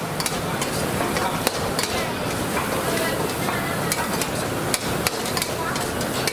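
Metal cooking utensils clacking irregularly against a pan over a steady sizzle of frying, a street-food stall at work.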